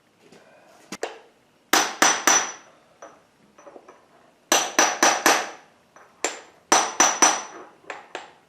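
Hammer striking metal in quick groups of three or four sharp, ringing blows, tapping an engine part into place on the International Harvester 500C dozer engine being rebuilt.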